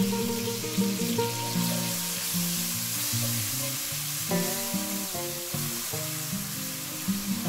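Chopped tomato and bell pepper sizzling in hot vegetable oil in a frying pan, stirred with a spatula from about halfway through. Background music plays throughout.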